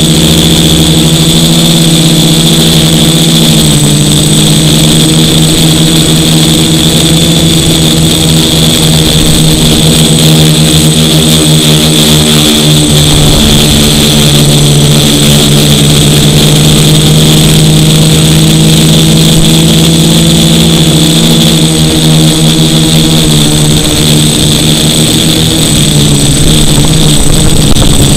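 DJI F450 quadcopter's electric motors and propellers buzzing right beside the camera mounted on its frame, the hum shifting in pitch as the throttle changes, with a steady high whine over it.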